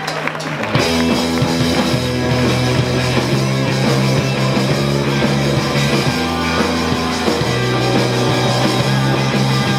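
Live rock band playing an instrumental passage on electric guitars, bass guitar and drum kit. The full band comes in loud about a second in, over long held bass notes.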